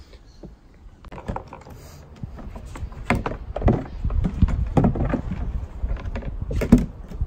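A run of irregular hollow knocks, clicks and clunks as the front hatch lid of a Stealth Profisha 475 fishing kayak is handled and lifted open.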